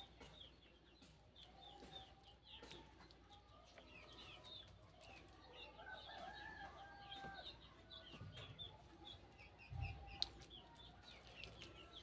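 Faint background birds: many short high chirps throughout, with a few longer, lower calls around the middle. A soft low thump a little under ten seconds in.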